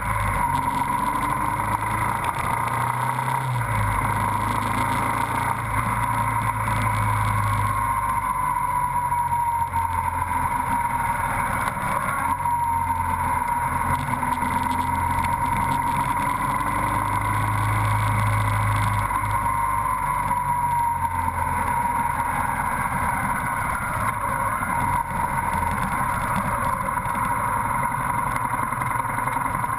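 Motorcycle engine running as the bike rides through city traffic, with a steady high whine that wavers slightly in pitch over a low rumble that rises and falls with the throttle.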